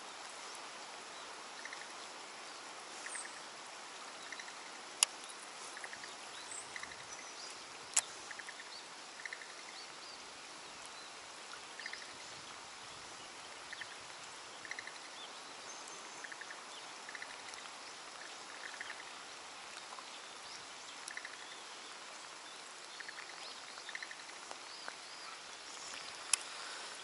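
Steady hiss of rain and water with a frog calling over it in short rattling trills of a few quick pulses, repeated every second or so. Two sharp clicks come about five and eight seconds in.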